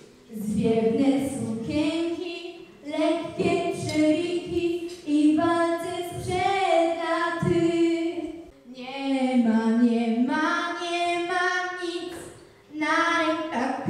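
A girl singing solo into a microphone, without accompaniment, in long held notes with short breaths between phrases.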